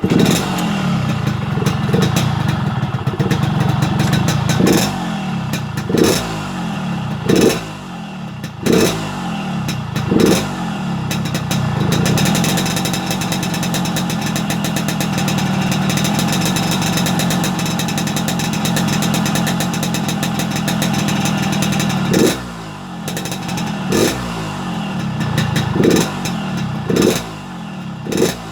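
Yamaha RX-King two-stroke single with a hollowed-out, baffle-less exhaust, revved in a series of short throttle blips about every second and a half, held at a steady higher rev through the middle, then blipped again near the end. The exhaust note has the raspy, snoring ('ngorok') tone of an emptied-out silencer.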